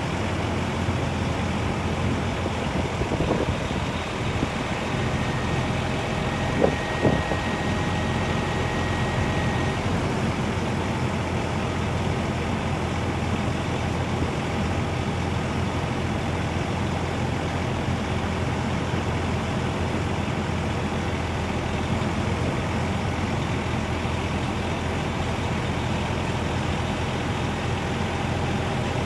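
Diesel engine of a 2007 Peterbilt 378 crane truck running steadily, driving the crane's hydraulics while the boom retracts and lowers. About five seconds in, a faint high whine comes in for a few seconds, and two sharp knocks come close together about seven seconds in.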